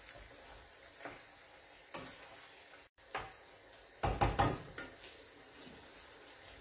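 Wooden spoon stirring pasta in a nonstick frying pan, knocking against the pan a few times, loudest in a short cluster about four seconds in, over a faint steady sizzle.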